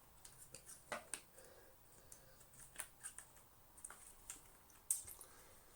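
Faint handling noises as a vacuum cleaner's motor, rubber seal and plastic fan case are pushed together: scattered light clicks and scrapes, the sharpest about a second in and again near the end.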